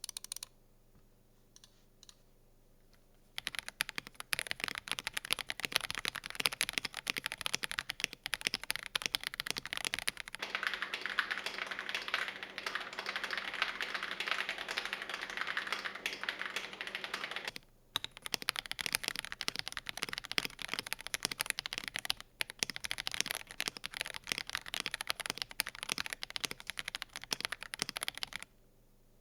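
Typing on an Akko ACR Pro Alice Plus mechanical keyboard in its stock aluminium-plate configuration, with lubed Akko CS Clear switches and Akko ASA keycaps: rapid clacking key presses. The typing starts about three seconds in, gets faster and denser in the middle, and stops briefly twice in the second half.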